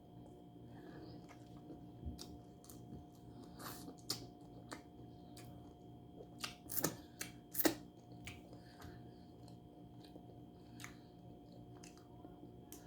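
Close-miked eating sounds from someone eating shrimp in butter sauce: wet chewing and smacking, with scattered sharp clicks, the loudest about four and seven seconds in.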